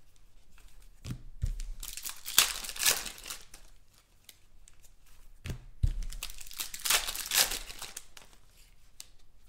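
Foil trading-card pack wrappers crinkling and tearing open, in two bursts about four seconds apart, each with a soft thump.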